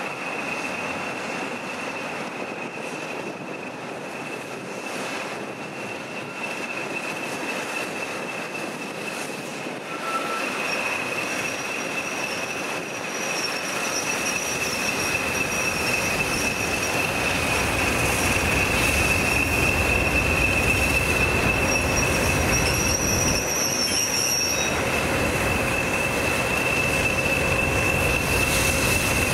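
Slow-moving train of diesel locomotives hauling a steam locomotive, its wheels squealing in one steady high tone, with a second, higher squeal coming in twice. The low rumble of the diesel engines and wheels grows louder from about halfway through as the locomotives draw closer.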